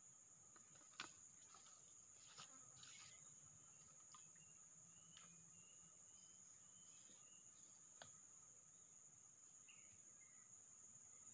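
Faint, steady, high-pitched drone of forest insects, with a few soft clicks.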